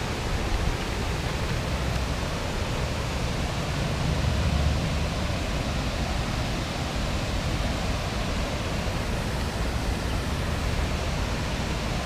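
Outdoor nature ambience: a steady rushing noise with a low, uneven rumble underneath and no distinct events.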